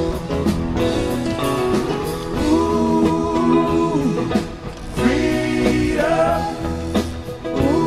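A song with a singer holding long notes over guitar and band accompaniment.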